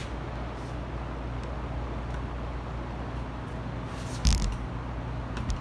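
Steady low background hum, with a single knock from handling something about four seconds in.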